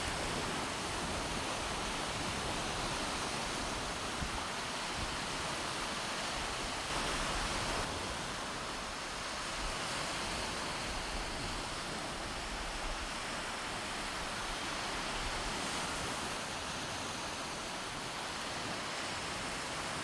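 Steady rushing of ocean surf on the shore, with wind rumbling unevenly on the microphone.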